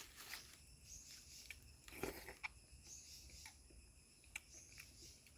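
Faint chewing and wet mouth smacks of a person eating cooked softshell turtle, with scattered short clicks and a louder smack about two seconds in.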